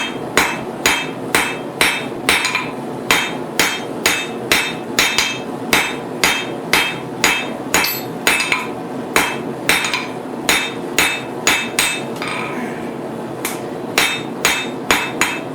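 Blacksmith's hand hammer striking a hot 10 mm steel bar on the anvil in a steady run of blows, about two or three a second, drawing the end out to a fine point. The blows stop for about a second and a half near the end, then carry on.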